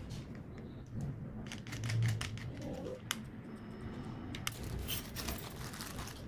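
Handling noise: scattered light clicks and taps, with a short rustle past the middle.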